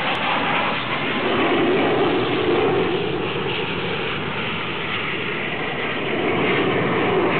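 The twin jet engines of a MiG-29 fighter in display flight, heard from the ground as a continuous jet noise with a slowly wavering tone.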